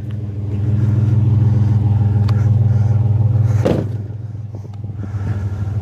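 Vehicle engine running with a steady low hum, growing louder for a few seconds as it pulls away, then easing off. One short sharp noise is heard a little past the middle.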